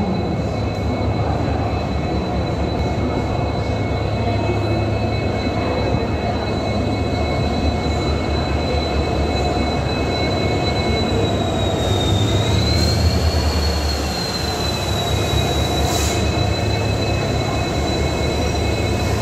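WDP4D diesel-electric locomotive running light at slow speed, its 16-cylinder EMD two-stroke diesel engine giving a steady low rumble. A thin high whine runs over it, dipping and rising briefly about twelve seconds in. The rumble eases slightly a little later.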